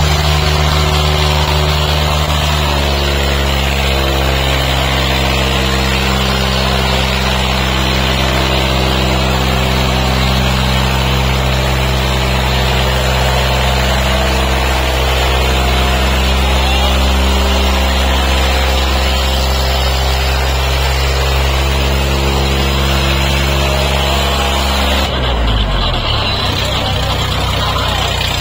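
Tractor diesel engine running hard under heavy load, its exhaust smoking black as it drags a weighted sled, holding one steady pitch; about three seconds before the end its pitch drops away.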